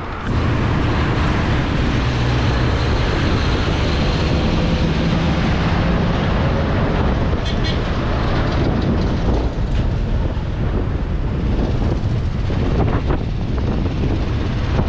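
Road traffic heard from a moving bicycle: a steady rumble of engines and tyres, with a heavy dump truck running close alongside.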